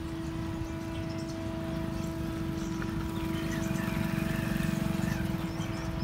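Vande Bharat Express train horn sounding one long, steady blast as the train approaches at speed. A low rumble from the train swells underneath about halfway through, with birds chirping faintly.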